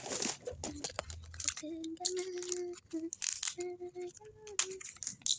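Hard plastic hangers clattering and paper wrapping rustling and tearing as they are handled and unwrapped, with sharp clicks throughout. A few short steady tones sound in the middle.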